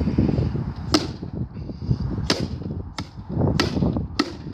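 A coffee maker being struck repeatedly with a hand-swung tool: about five sharp, uneven hits as it is smashed.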